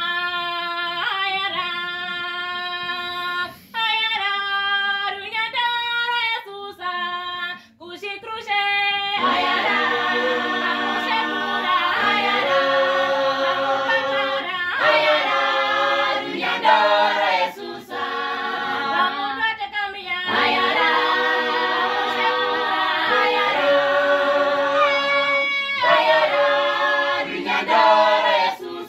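Youth choir singing a cappella. A lead voice sings alone at first, then the full choir comes in about nine seconds in and carries on in harmony.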